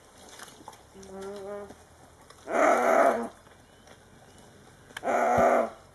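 Antelope calling out in distress as wild dogs pull it down: two loud, harsh bawls, each under a second and about two and a half seconds apart, after a shorter, quieter steady call about a second in.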